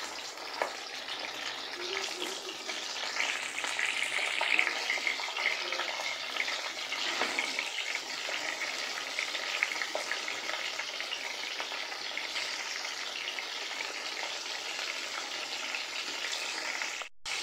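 A piece of rohu fish head frying in hot sunflower oil in a karahi: a steady sizzle with scattered small pops, strongest a few seconds in.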